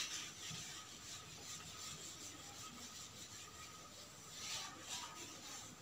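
Whiteboard being wiped with a cloth duster: faint rubbing strokes, a little louder about four and a half seconds in.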